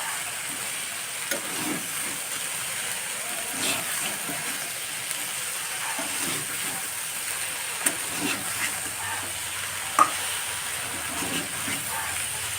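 Potato, brinjal and Malabar spinach seeds sizzling in oil in a kadai, stirred with a spatula that scrapes and knocks against the pan now and then, the sharpest knock about ten seconds in.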